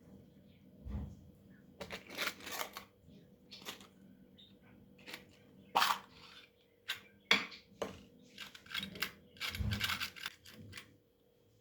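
Small objects being handled close by: an irregular run of short clicks, taps and brief rustles, with a low thump about a second in and another near the end.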